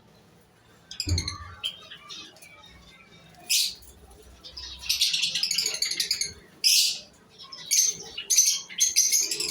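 Small caged aviary birds chirping and calling: scattered short high chirps at first, a dense stretch of chatter around the middle, and several loud, sharp calls near the end.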